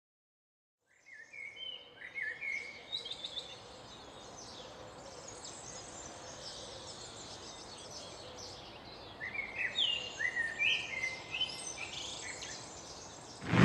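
Small birds chirping: quick runs of short sliding notes in two bouts, about a second in and again near the end, over a faint steady hiss. Music cuts in right at the end.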